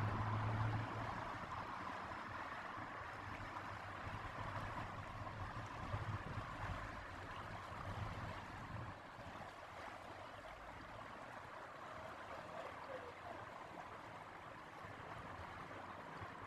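Fast-flowing river water rushing past the bank, a steady, even hiss.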